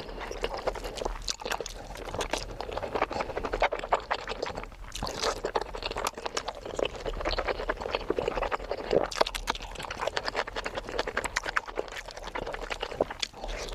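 Close-miked eating sounds: wet chewing and smacking of a curry-and-rice meal, a dense run of irregular small clicks and squelches.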